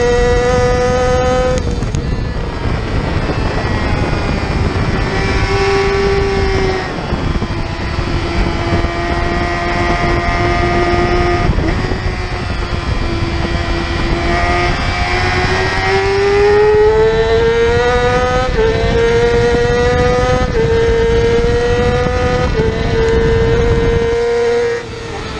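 Yamaha R6's inline-four engine revving hard, heard from an onboard camera over wind rush. The revs fall about two seconds in, climb again through the middle, then step through a few quick gear changes before the throttle is shut near the end.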